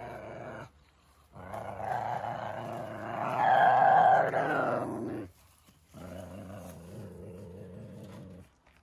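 Ocelot growling in long, rough bouts: one fading out about half a second in, a louder one from about one and a half to five seconds in, and a third from about six seconds until shortly before the end.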